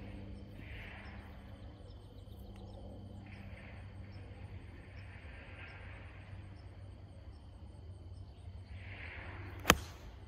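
A 5-iron striking a golf ball off the tee: one sharp crack near the end. Behind it, insects chirp faintly and steadily over a low, constant rumble.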